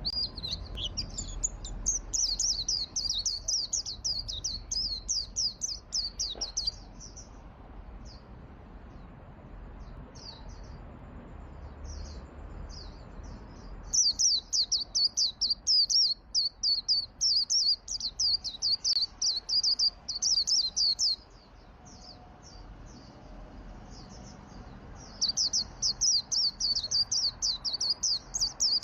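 A white-eye (pleci) singing energetically: fast, high twittering song in three long runs, with scattered short notes in the gaps between them.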